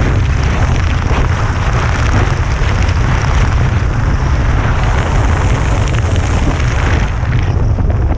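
Heavy wind buffeting on an action camera's microphone while flying a parachute canopy at speed: a loud, continuous rush with a deep rumble, its hiss thinning a little near the end as the canopy nears the ground.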